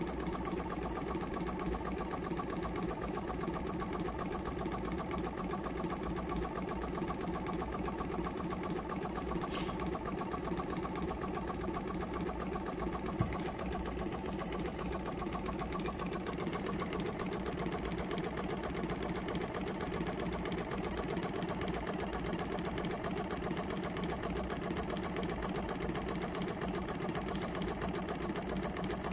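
Small air compressor built into a portable jump-starter box, running steadily with a fast, even mechanical clatter. Its motor, which had been seized, is still tight and barely running, and the unit's internal battery is weak.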